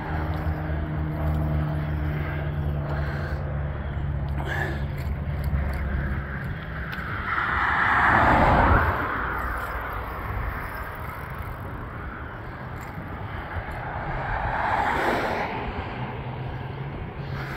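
Motor vehicles on the road: a low engine hum at first, then a car goes by about eight seconds in, swelling and fading, and a fainter one passes around fifteen seconds in.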